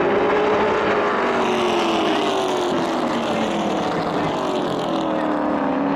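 Stock-car-style racing pickup trucks' engines running hard on a paved oval, several engines blending into one loud, steady sound. The engine pitch slides slowly down.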